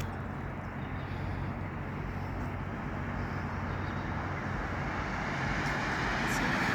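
Steady road traffic noise with a low hum, growing louder near the end.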